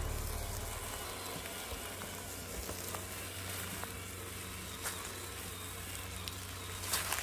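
1/10 RC crawler driving over a forest floor: a faint, steady crackling hiss with scattered small clicks as the tyres work over twigs and leaves. A short louder cluster of crackles comes near the end.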